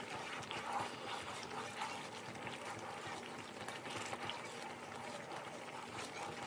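Thick coconut-caramel sauce (Tongan lolo) bubbling and popping in a wide pan as it is stirred with a wooden spoon, with a steady hum underneath.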